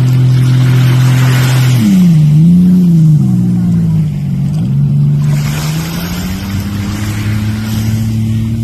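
Jet ski engine running under way with a steady drone. About two seconds in its pitch drops and wavers up and down, then it settles and slowly climbs again. Swells of water spray hiss over it.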